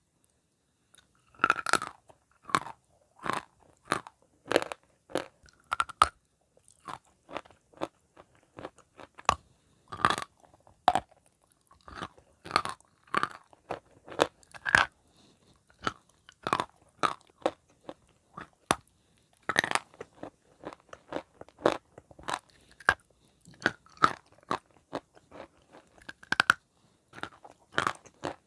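Wet chalk being bitten and chewed close to the microphone: sharp crunches one after another, about one or two a second, with brief silent gaps between them.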